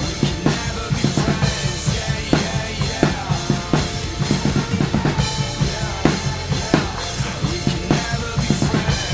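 Full drum kit played over a backing rock track: steady kick and snare hits with cymbals, many hits a second.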